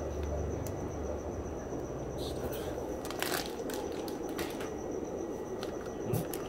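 Water-filled plastic fish-shipping bags rustling and crinkling as a hand sorts through them in a styrofoam shipping box, with a few short clicks over a steady background hiss.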